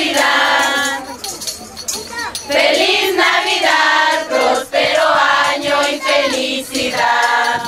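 A group of women and girls singing together as a choir, in sung phrases broken by short pauses for breath.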